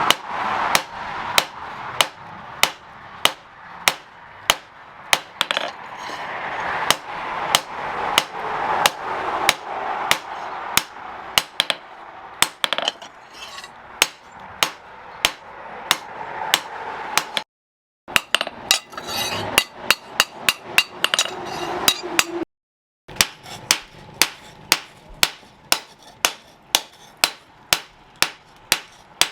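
Blacksmith's hammer striking steel on an anvil in a steady rhythm of about two blows a second, each blow ringing briefly. The hammering breaks off twice for a moment.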